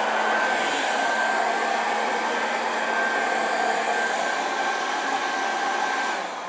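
Hand-held hair dryer blowing steadily: a rush of air with a thin high whine over it. Near the end the whine stops and the sound eases a little.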